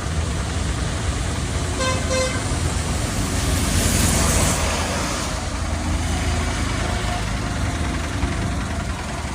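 Diesel engine of a Bull backhoe loader running steadily, with two short horn toots about two seconds in and a louder rushing noise swelling and fading around four seconds in.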